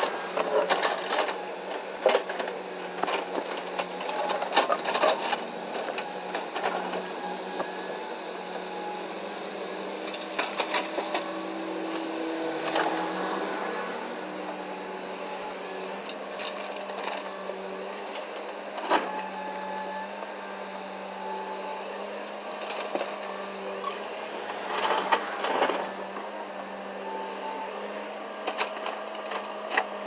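Kobelco hydraulic excavator's diesel engine running with a steady hum, with scattered knocks and scrapes as its bucket digs soil and dumps it.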